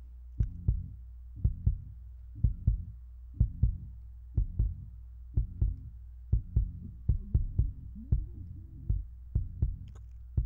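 The low band of a song played on its own: the music cut off above 120 Hz and compressed, so only kick drum thuds and bass are left. The thuds come about two a second in a steady beat over a sustained low bass.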